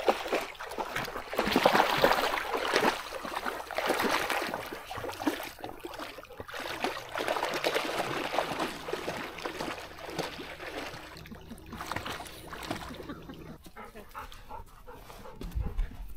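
A dog making sounds over an uneven rushing, rustling noise that swells and fades several times.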